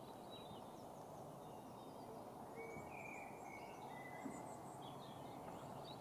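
Faint outdoor ambience: a steady low background noise with scattered faint bird chirps, the clearest a few short whistled notes about halfway through.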